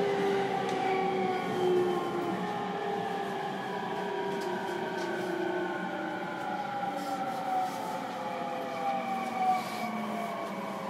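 Inside a JR East E231 series motor car, MoHa E231-1052: the VVVF inverter and traction motors whine in several tones that slowly fall in pitch over steady rolling noise, as the train slows for Kita-Ageo station. A few short knocks come near the end.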